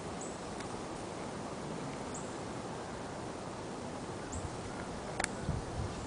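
Steady outdoor background hiss with faint, short high-pitched chirps about every two seconds. Near the end come a sharp click and a few low thumps.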